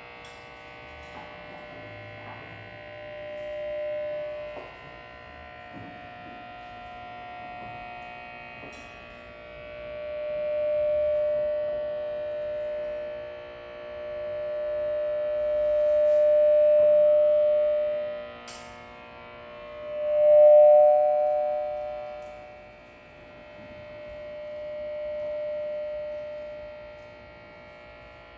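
Live experimental music: a droning electronic tone over a steady hum, swelling up and fading away about five times, the loudest swell about two-thirds of the way through. It comes from an electronics unit played by an upright bassist.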